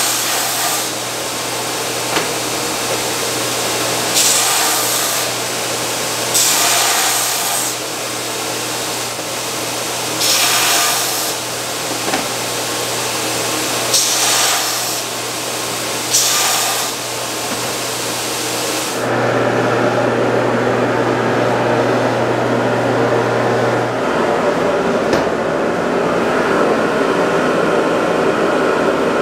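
Power grinder running in a knife-making shop, with a steady hum and repeated bursts of hissing every few seconds as steel is pressed against the abrasive. About two-thirds of the way through, it changes to a steadier, fuller rushing noise.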